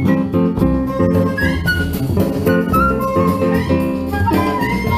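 Jazz-style music with a steady beat and plucked-string notes, played back through Lipinski Sound L707 Monitor loudspeakers; a held melody line comes in near the end.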